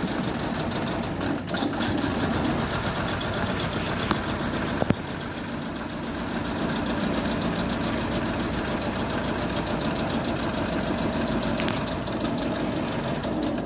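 Honda Civic FD four-cylinder engine idling steadily with a knock and a misfire, which the technician traces to one failed ignition coil. It is switched off right at the end.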